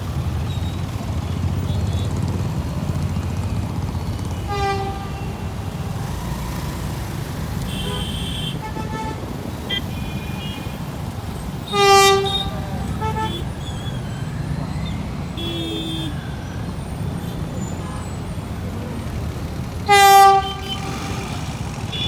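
Steady traffic rumble with horn toots. A fainter toot comes about five seconds in, and two loud, short blasts of one pitch come about twelve and twenty seconds in, with a few brief lighter honks between them.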